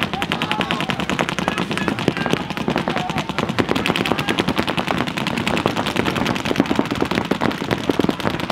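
Several paintball markers firing fast, overlapping streams of shots, a continuous rapid rattle.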